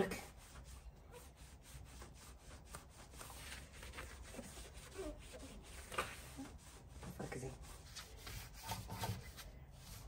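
Small cleaning brush scrubbing back and forth along the edge of a dishwasher door: a quick, uneven run of short scratchy rubbing strokes.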